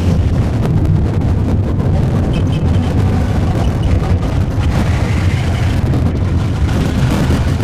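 Piezo contact pickups on a desk, run through audio plugins: a loud, steady, dense rumbling noise drone, heaviest in the deep low end.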